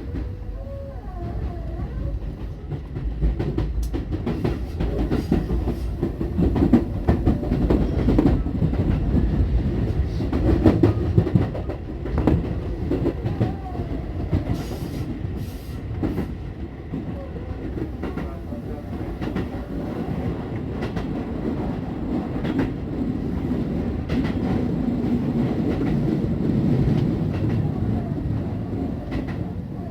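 Tobu Skytree Line electric train running on track, its wheels clacking over rail joints over a continuous rumble.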